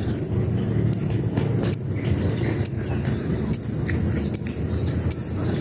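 Labet songbird giving short, sharp, high chirps that drop in pitch, repeated about once a second: a call to challenge a rival. A steady high insect drone and a low rumble run underneath.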